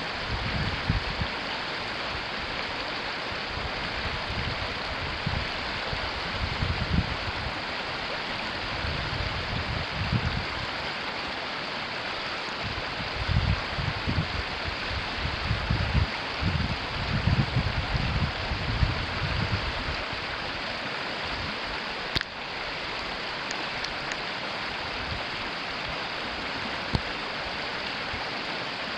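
River water rushing steadily over a shallow bed, with irregular low rumbling swells now and then and a brief dropout about two-thirds of the way through.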